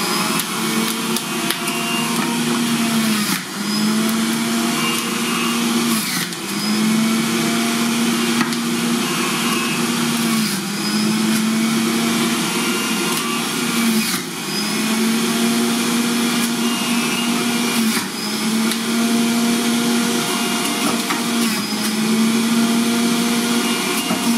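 Electric centrifugal juicer running while pineapple chunks are pushed into it. The motor hum drops in pitch every few seconds as each load of fruit hits the spinning grater basket, then recovers.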